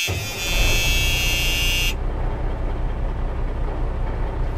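A steady, buzzer-like electronic tone cuts off about two seconds in. Under it and after it there is the low, steady rumble of a school bus's engine running.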